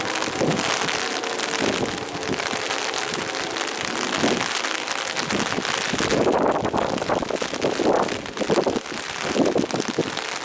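A steady hiss of rain, with louder swells in the second half. The faint steady tone of an ACA P-50 tornado siren dies away in the first second.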